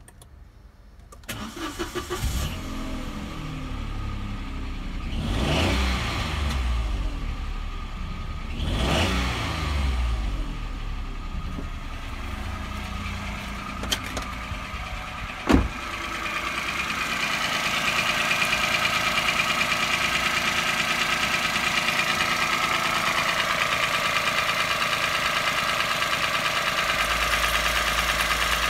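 A Citroën C1's 1.0-litre three-cylinder Toyota 1KR-FE petrol engine is started, given two brief revs and then left idling steadily. It is heard closer and louder from the engine bay in the second half. A single sharp thump comes about halfway through.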